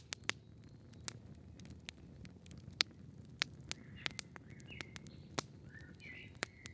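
Quiet forest ambience: scattered small sharp clicks and crackles over a faint low rumble, with a few faint high bird chirps about four and a half and six seconds in.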